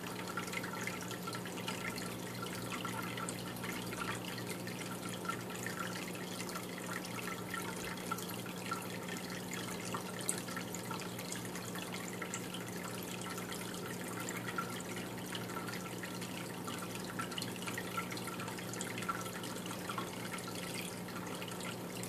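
Turtle tank filter running: water trickling and dripping faintly over a steady low hum.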